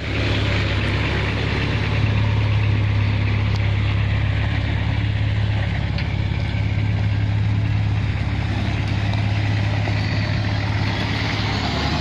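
Nissan Patrol's compound-turbocharged RD28 diesel engine running at a steady speed.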